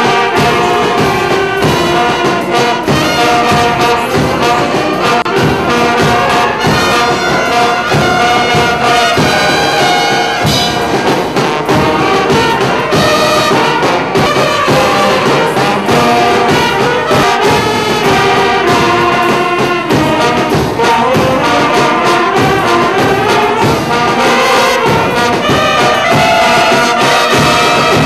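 A wind band of saxophones, clarinets, trumpets and trombones, with a bass drum, playing a tune together, loud and steady throughout.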